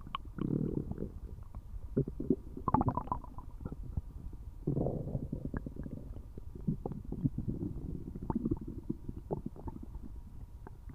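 A person's stomach gurgling loudly: irregular bubbling rumbles studded with many small clicks and pops, coming in bouts with stronger surges a few times.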